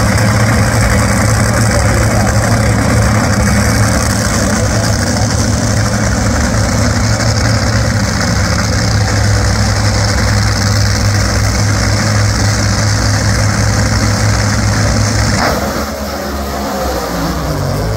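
Two Top Fuel dragsters' supercharged nitromethane V8 engines running loudly and steadily at the starting line. About fifteen seconds in they launch: the steady low drone cuts off and the sound drops away with a falling pitch as the cars leave down the track.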